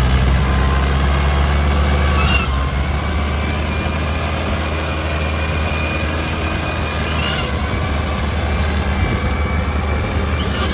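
Fiat 640 tractor's diesel engine running hard under a heavy load, pulling an overloaded sugarcane trailer. The sound is a steady, loud low engine note that eases slightly about two seconds in.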